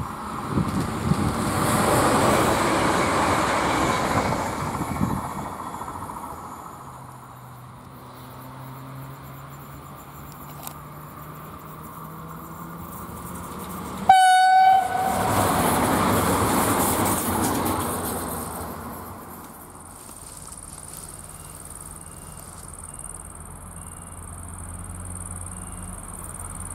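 Two electric multiple-unit passenger trains passing in turn on an electrified line, each a swell of wheel and running noise that fades as it goes by. A short horn blast sounds as the second train arrives, about halfway through. Near the end comes the rising low hum of an electric locomotive hauling a freight train toward the microphone.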